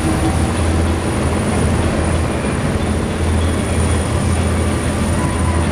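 Helicopter hovering overhead: a steady rotor-and-engine rumble with a strong low band.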